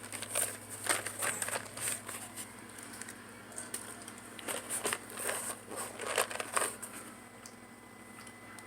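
Hot Tamales Fire & Ice candy package crinkling and rustling as it is handled, in a string of short crackles and clicks that die away near the end.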